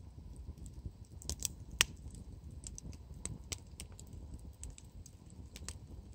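Wood campfire crackling: irregular sharp pops and snaps, the loudest about two seconds in, over a faint low rumble.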